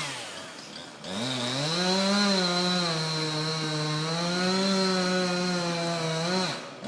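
Two-stroke chainsaw: a brief rev at the start that dies back to idle, then about a second in it revs up to full throttle and runs at high speed cutting into a tree trunk, its pitch dipping and recovering under load, before dropping off just before the end.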